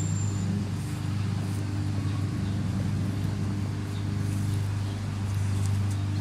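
A steady low mechanical hum from a running motor or engine, holding an even pitch throughout.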